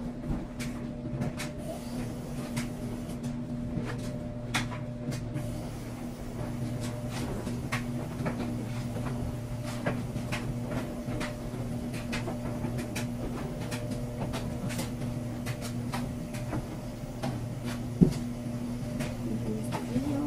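Washing machine running through a wash cycle with a steady low hum. Over it come scattered light clicks and rustles of clothes being handled, and one sharp knock near the end.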